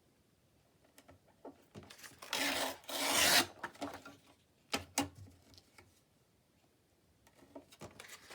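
Sheets of paper being handled, sliding and rubbing against each other: two long rubs about two to three seconds in, with a few light taps and clicks around them.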